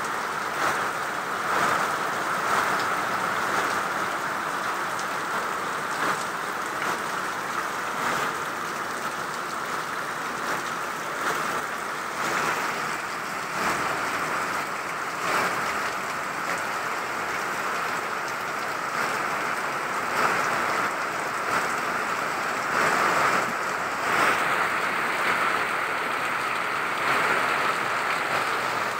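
Heavy tropical downpour: a steady hiss of rain, with water pouring off the edge of a corrugated roof and frequent short, louder spatters.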